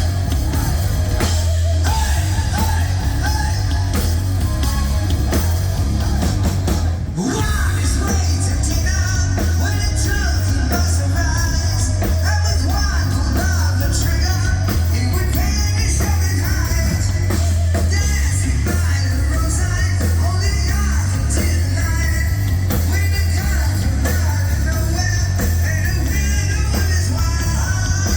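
Live heavy rock band playing loudly with singing: distorted guitars, bass and drums in a steady wall of sound, with a brief drop about seven seconds in.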